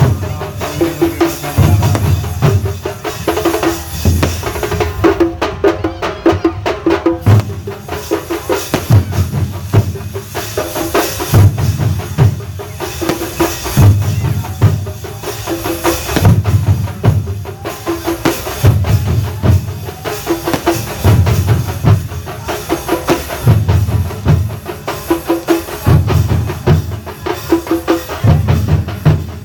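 A thambolam percussion band plays a fast, driving rhythm: dense sharp drum strokes over heavy bass-drum beats that come every second or two.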